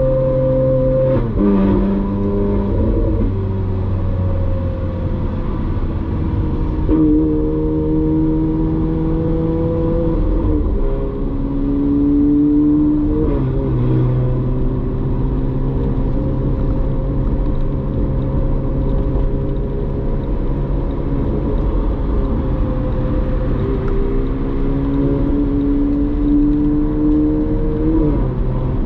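Ferrari 458 Spider's naturally aspirated V8 running at highway cruising speed. The engine note holds steady or drifts slowly, with a few abrupt shifts in pitch.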